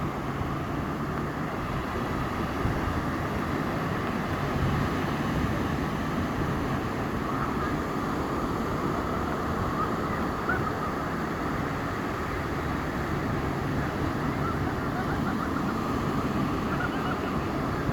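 Ocean surf washing steadily onto a beach, mixed with wind. Faint, high children's voices call out now and then, mostly in the second half.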